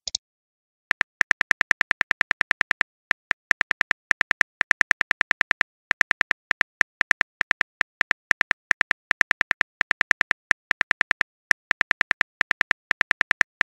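Phone keyboard typing sound effect of a texting-story animation: a fast run of short clicks, about eight a second, in bursts with brief pauses, as a message is typed out letter by letter.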